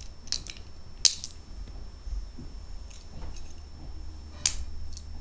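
Plastic Lego bricks clicking and clattering as they are handled and sorted, a few sharp clicks standing out, the loudest about a second in and about four and a half seconds in, over a steady low hum.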